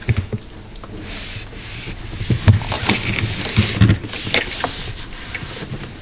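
Handling noises: rubbing and rustling with scattered light knocks, several of them between about two and four and a half seconds in.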